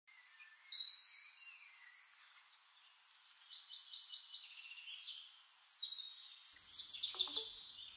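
Birds chirping and calling, several high overlapping calls, louder about a second in and again near the end.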